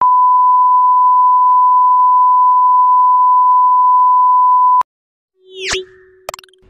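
Loud, steady 1 kHz sine reference tone of a colour-bars test signal, holding one pitch and cutting off suddenly just under five seconds in. After a short gap, a brief sweeping sound effect and a low hum with a couple of clicks begin a video intro animation.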